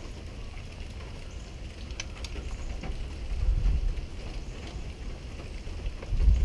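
Uneven low rumble of wind on the microphone, with a few faint metallic clicks about two seconds in from a wrench tightening the fuel rail bolts on an outboard motor.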